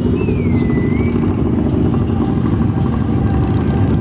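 Steady, loud low rumble of many motorcycle engines as a procession of bikes rides past. A short high tone glides down and back up about a quarter second in.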